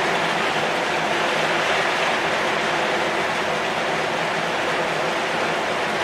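Heavy rain falling on a corrugated zinc roof and on the leaves of a pucuk merah tree: a steady, dense hiss that does not let up.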